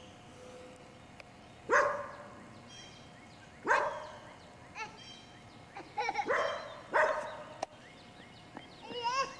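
A dog barking: four single barks spaced one to two seconds apart.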